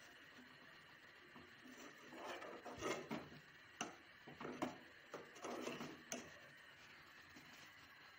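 Steel spoon stirring and scraping against the inside of a stainless steel pot, a run of scrapes with a few sharp clinks through the middle seconds.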